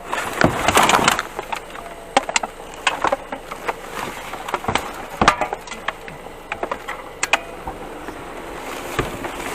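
Irregular knocks, clicks and rattles of hard objects being handled, with a dense clatter about a second in.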